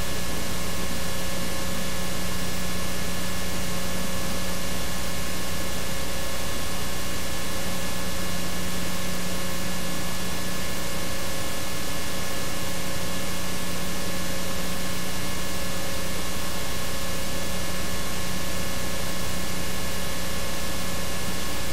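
Steady hiss with a low electrical hum and a few faint fixed tones: recording noise, with no other sound heard.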